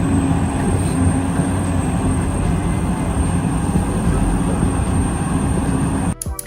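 Radio-controlled model machine running: a loud, steady rumble of motor and drivetrain with a thin high whine, cutting off suddenly about six seconds in.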